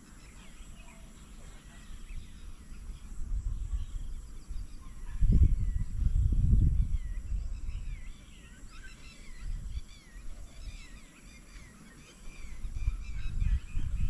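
Birds chirping and calling in short rising-and-falling notes, over low rumbling gusts that swell about five seconds in and again near the end, the loudest sound.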